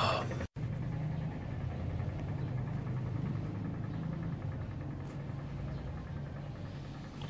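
Steady low hum under an even background noise, cutting out for an instant about half a second in.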